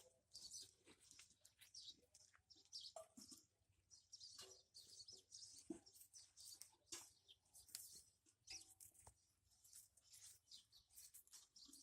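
Faint, rapid high-pitched chirping of small birds, many short calls in quick succession.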